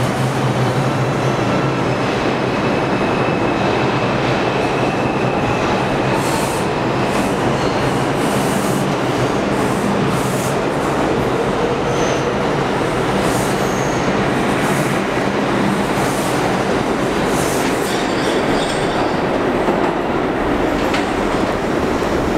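R142 subway train pulling out of the platform and gathering speed, with a steady loud rumble, a thin motor whine, and a string of wheel clicks and squeals over the track from about six seconds in.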